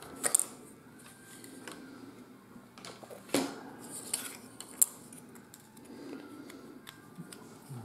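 Thin laser-cut wooden kit parts being popped out of their sheet and handled: a few sharp clicks and light wooden clatter.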